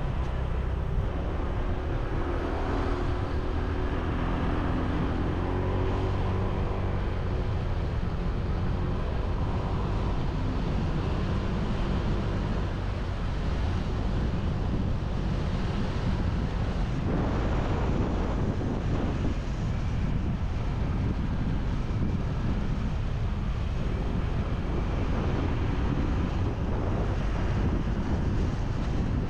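Motorbike riding along a road: wind buffeting the microphone over steady engine and road noise. An engine note stands out for a few seconds near the start.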